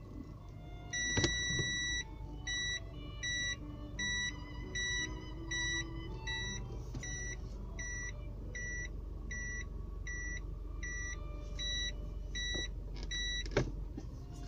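Car's reverse-gear warning beeper: a click as the automatic gear selector goes into reverse, one long high beep, then short beeps repeating about every three-quarters of a second. The beeping stops near the end with another selector click, and the idling engine hums underneath.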